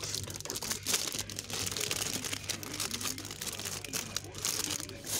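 Clear plastic wrapping on a packaged fitness ball crinkling and crackling as it is handled, in irregular bursts. A low steady hum runs underneath.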